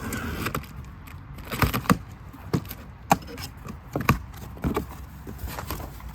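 Boxed brake parts and their packaging being handled: scattered knocks and clicks with rustling in between.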